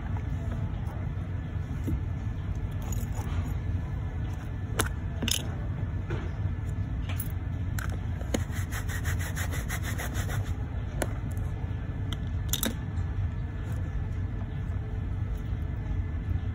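Small metallic clicks and light scraping as a steel watch case and its caseback are handled, with a fast run of fine ticks lasting about two seconds near the middle, over a steady low rumble.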